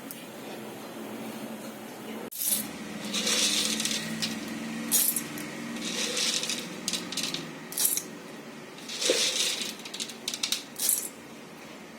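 A metal spoon clinking and scraping against a steel cooking vessel in a series of irregular short strokes, after a sudden break about two seconds in.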